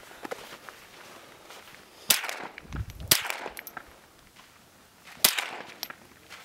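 Three gunshots from a firearm fired at targets. The first two come about a second apart and the third about two seconds later, each a sharp crack with a short tail.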